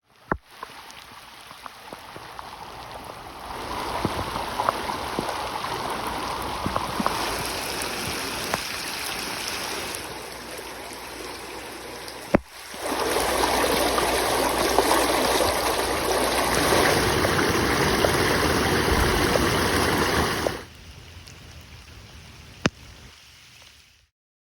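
Floodwater rushing steadily over a street. The rushing swells a few seconds in, dips and comes back louder around the middle, then falls off near the end. A few sharp clicks stand out, one about halfway through.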